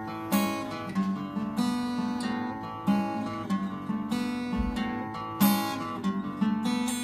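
Acoustic guitar strummed in a steady rhythm, the opening instrumental bars of a song, with a heavier accented strum about every two and a half seconds.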